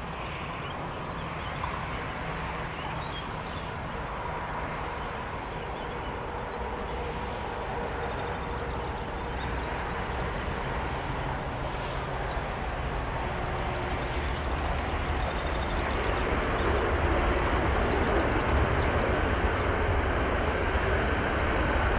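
Jet airliner approaching: a steady low rumble of its engines that grows gradually louder, loudest in the second half.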